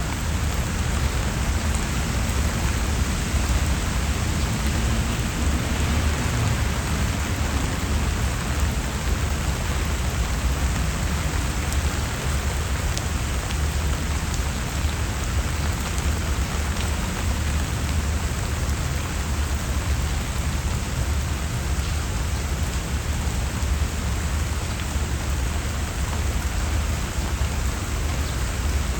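Steady rain falling on leaves and paving, an even hiss with a few distinct drops ticking through it, over a constant low rumble.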